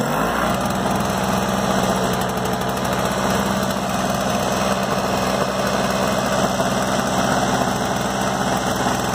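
Ariens 522 snowblower's two-stroke engine running steadily, just caught on the first pull from a cold start without choke on fresh 50:1 mix after being stored with a dry tank; its speed rises briefly in the first moment, then holds even.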